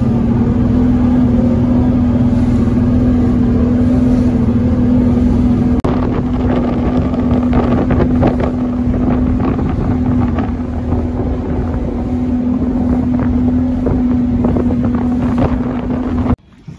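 Motorboat engine running steadily underway, a loud even drone over heavy low rumble, with wind on the microphone. It cuts off suddenly near the end.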